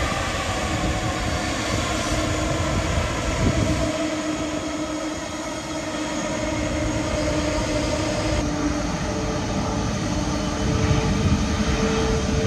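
Jet airliner engines running loud, with a whine that slowly drops in pitch as the aircraft passes. About eight seconds in the sound cuts abruptly to another stretch of jet engine noise.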